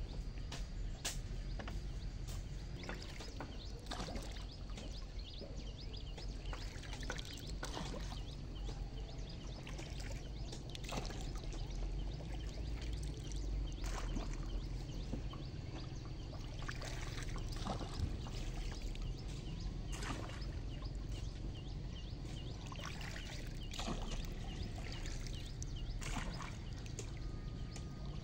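A bamboo pole dipping into river water as a bamboo raft is poled along. Water splashes and trickles off the pole, with irregular small knocks and clicks.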